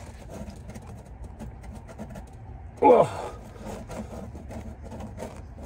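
A man's short strained groan of effort, sliding down in pitch about three seconds in, as he leans on a breaker bar at the crankshaft pulley of an engine that will not turn. A low steady hum sits underneath.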